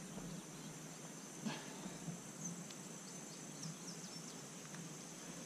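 A steady, faint, high-pitched chorus of insects. A few short high chirps and a single faint click about a second and a half in.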